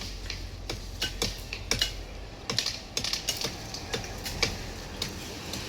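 Irregular sharp clicks and knocks, some louder than others, from branches being cut and broken during tree trimming.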